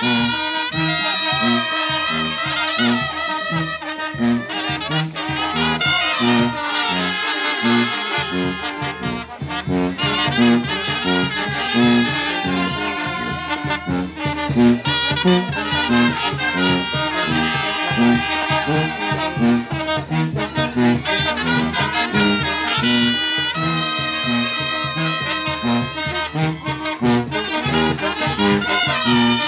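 A brass band playing a chilena, with horns over a steady, regularly pulsing bass line throughout.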